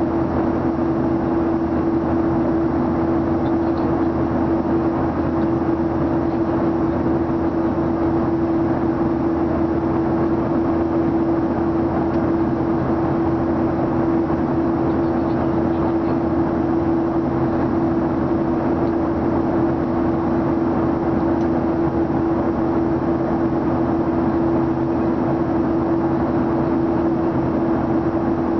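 Steady cabin noise inside an airliner in flight: engine and airflow noise heard from a window seat, with a constant hum running through it.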